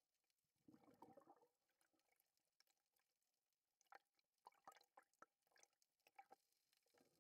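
Faint water sounds picked up by an underwater camera: a short gurgling burst about a second in, then a scattered run of sharp clicks.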